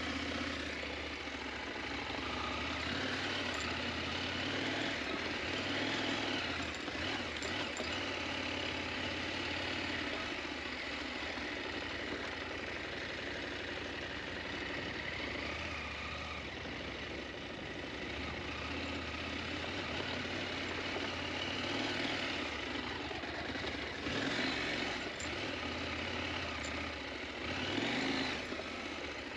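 KTM 890 Adventure motorcycle's parallel-twin engine running steadily, with small swells in level.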